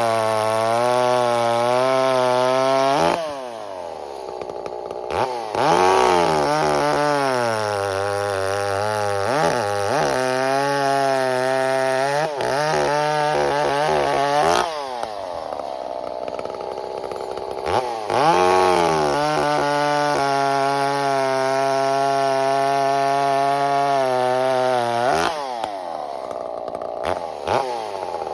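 Ported and piped Echo CS-590 Timberwolf chainsaw cutting sugar maple at full throttle, its engine note wavering under the load of the cut. The throttle drops off three times, about 3, 14 and 25 seconds in, revving back up between cuts, and the saw settles low with a couple of quick blips near the end.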